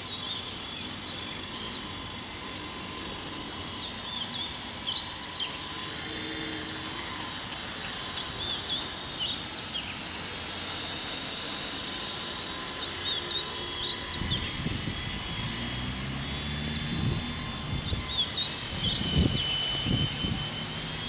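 WLtoys V913 radio-controlled helicopter in flight: the high, steady whine of its electric motor and rotor. Birds chirp over it, and a lower rumbling joins about two-thirds of the way through.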